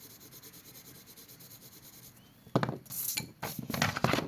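Colouring pens or pencils clattering and clinking against each other as they are picked through, loud and jumbled over the last couple of seconds after a faint light ticking.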